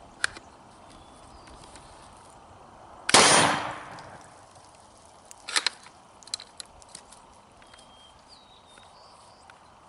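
A single 12 gauge shotgun blast from a Cobray Terminator-type single-shot shotgun firing 00 buckshot, about three seconds in, with a short echoing tail. A couple of seconds later come a few sharp metallic clicks and clacks.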